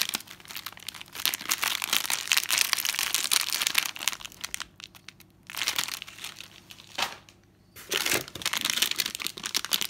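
Crinkly plastic packaging being handled, crackling and rustling almost continuously, with two short pauses in the second half.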